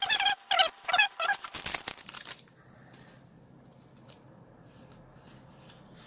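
Foil booster-pack wrapper being torn and crinkled open: a quick series of short crackly rustles for about two seconds, then only faint soft handling of the cards.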